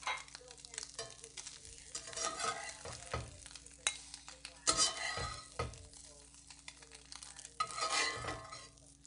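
A metal spatula scraping and turning scrambled eggs and sweet potato chunks in a cast iron skillet, with irregular scrapes and clacks against the pan over a light sizzle of frying.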